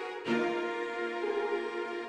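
Cinematic orchestral background music with sustained bowed-string chords; a new chord comes in just after the start.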